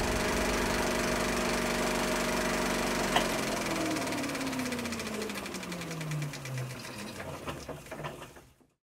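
Film projector sound effect: an even mechanical clatter under the held tones of the outro music. About three seconds in there is a sharp hit. A tone then slides down in pitch while the clatter slows and fades, as if the projector is winding down, and it all cuts off shortly before the end.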